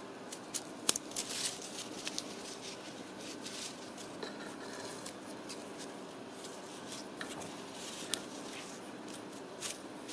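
Ragdoll kittens wrestling on a tile floor: scattered light clicks and scratches of their claws and paws, a quick cluster about a second in and single ones later, over a steady low room hum.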